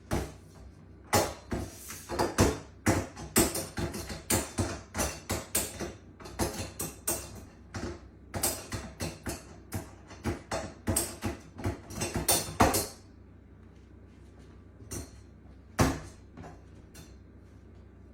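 Rapid, irregular banging and knocking, two to three hard hits a second, for about twelve seconds, then it stops, with a couple of single knocks later.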